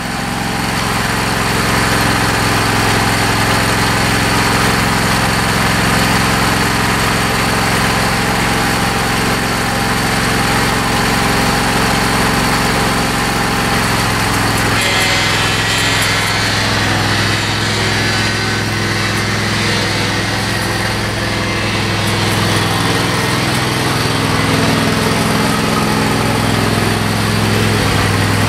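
John Deere L118 lawn tractor engine running as the tractor drives slowly, working oil into its freshly rebuilt hydrostatic transmission. A slight rattle rides on the engine sound, which the owner thinks comes from the belt guard or from metal the belt is touching. The engine note shifts about halfway through.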